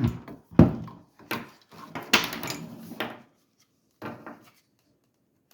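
Hard plastic knocking and clattering as a portable tire inflator's hose fitting is handled and twisted tight, with a longer scraping rattle about two seconds in.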